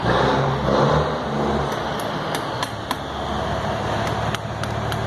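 A steady low engine-like drone runs throughout. From about a second and a half in, light, sharp metallic taps come about three to four a second: a small hammer tapping a screwdriver to turn a gearbox locking ring into place.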